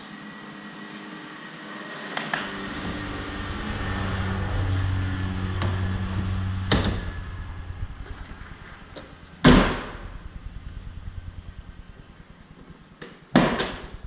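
Knocks and heavy thumps from a Mazda MX-5 Miata (NB), ending in its door being shut with a double thud near the end. The loudest thump comes about nine and a half seconds in, over a steady low hum.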